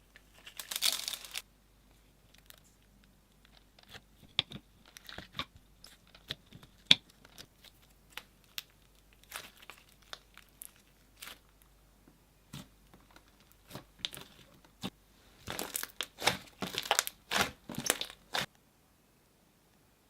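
Slime being pressed and squished by hand, giving scattered sharp crackling pops and crinkles. There is a short burst of crinkling about a second in and a dense run of crackles near the end.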